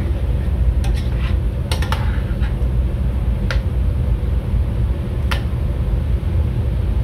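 Metal ladle stirring chicken in coconut-milk sauce in a large stainless steel pot, with several sharp clinks and scrapes of the ladle against the pot. A steady low hum runs underneath.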